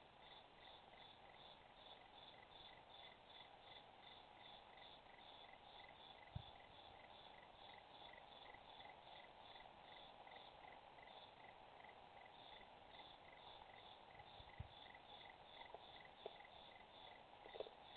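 Faint crickets chirping steadily at night, about three even chirps a second, over a low hiss. A few soft knocks and clicks come in partway through and near the end.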